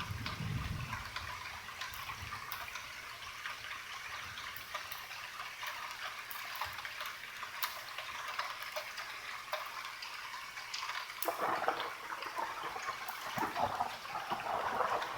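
Light rain falling with water dripping: a steady hiss scattered with small drip ticks. About three-quarters of the way through, a low rumble of distant thunder starts to build.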